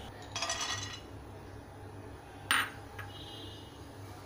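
Shelled pistachios tipped into a nonstick frying pan, a brief rattle of nuts on the pan. About two and a half seconds in there is a single sharp clink, then a small click.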